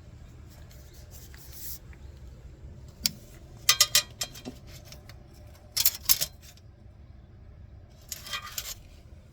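Sharp metallic clicks and clinks in short clusters, a few seconds apart, with a brief rattle near the end, over a low steady hum from the C-frame hydraulic press.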